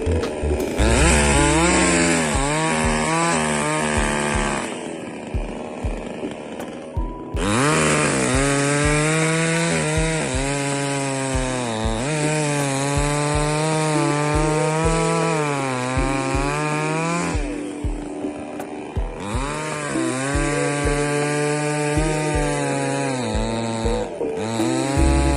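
JONSER BS5800 petrol chainsaw running and being revved up and down. It drops to a lower speed twice, about five and eighteen seconds in, then revs back up.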